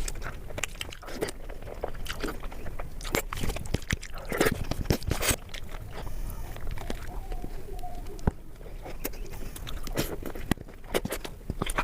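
ASMR eating sounds: a person chewing and biting a mouthful of chicken biryani, with irregular sharp mouth clicks and smacks.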